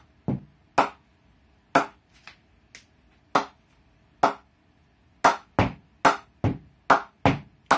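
A red leather cricket ball bounced repeatedly on the face of a MACE Stinger grade 2 cricket bat: sharp knocks, a few spaced out at first, then about two to three a second in the second half. This is a ping test of the bat's rebound off the willow.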